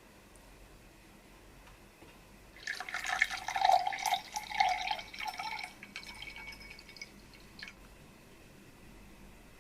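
Drink poured into a glass for about three seconds, trailing off in a few drips.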